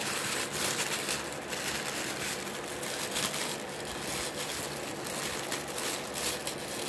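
Tissue paper crinkling and rustling as a child's hands unwrap a package, a continuous run of irregular papery crackles.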